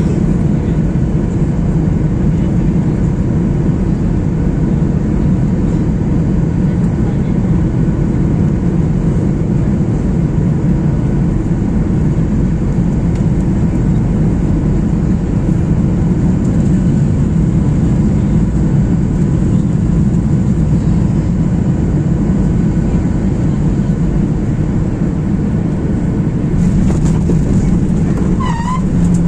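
Steady, loud engine and airflow rumble of a Boeing 737-800 airliner heard from the passenger cabin around landing. A brief warbling high sound comes near the end.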